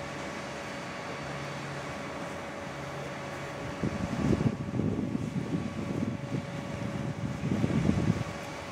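A steady low hum with a thin, faint steady whine, then from about four seconds in, gusts of wind buffeting the microphone in irregular low rumbles.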